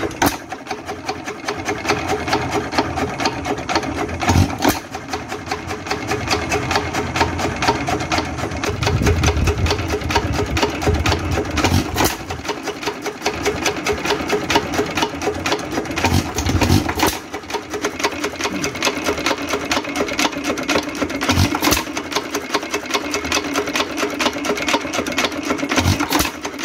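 Associated Chore Boy vintage hit-and-miss engine running steadily once warm, its crank and valve gear making a fast, even clatter. A louder bang comes every four or five seconds where it fires, with long miss cycles of coasting in between.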